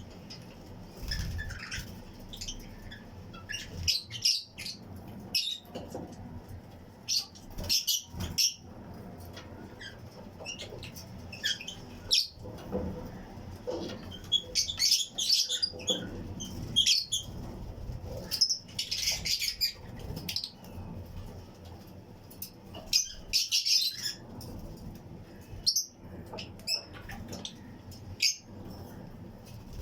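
A colony of Fischer's and lutino lovebirds chirping: many short, high chirps overlapping in clusters, with brief gaps between.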